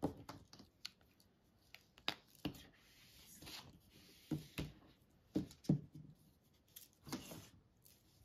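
Light handling sounds of craft pens and a cutting mat on a tabletop: scattered short taps and clicks, with a brief sliding rustle about three seconds in and again near the end as the mat is turned.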